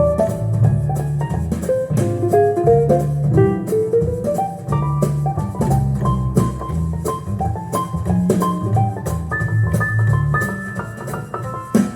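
Instrumental music with a bass line, moving melodic notes and a steady drum beat, played back through Genelec mini monitor speakers driven by a small Miniwatt N3 tube amplifier as an audio sound test.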